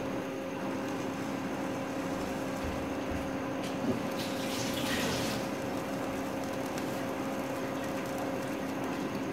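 Uttapam batter sizzling softly in a nonstick pan, a steady hiss over a low steady hum, swelling briefly louder about halfway through.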